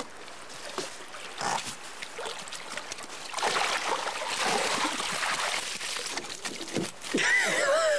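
Water splashing and churning beside the boat as a hooked lake trout is brought into a landing net, building up about three seconds in and lasting a few seconds. A short wavering shout from one of the anglers follows near the end.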